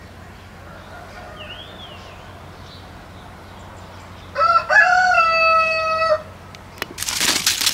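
A rooster crowing once: a single call of nearly two seconds that rises at the start and then holds level. A small bird chirps faintly before it, and crunching sounds start near the end.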